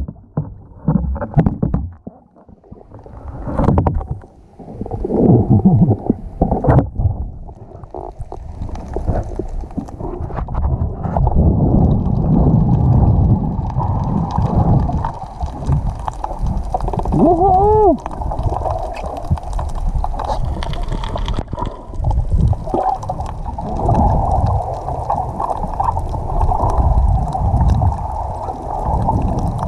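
Water sloshing and rushing against an action camera's waterproof housing during a freedive, with surface splashing at the start and then a dense underwater rumble with irregular knocks. A brief wavering pitched sound comes about eighteen seconds in.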